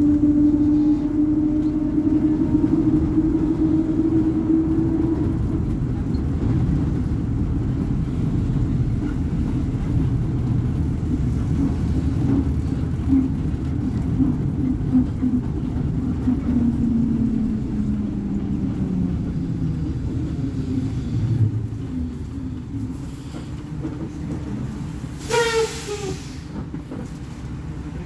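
Volvo B58 bus's inline-six diesel engine running under way, its tone dropping in pitch as it eases off. A thump sounds past the middle, and a brief falling squeal comes near the end.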